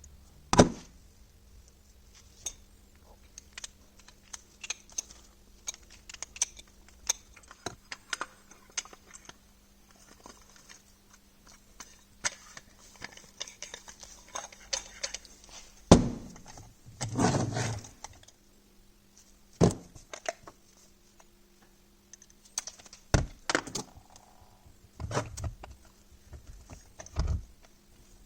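Metal parts and hand tools being handled on a workbench: scattered clinks, rattles and a few hard knocks, over a faint steady hum.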